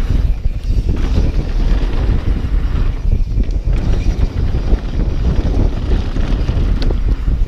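Wind buffeting the microphone over the rumble of a mountain bike riding fast down a wet downhill trail: a loud, unsteady low rush of noise.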